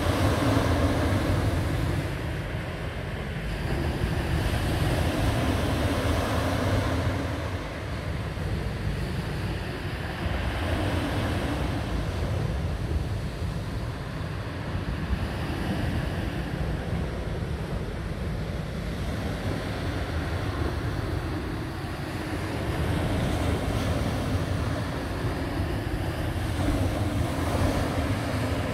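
Small waves breaking and washing over a pebble beach, the surf swelling and easing as each wave comes in, with wind noise on the microphone.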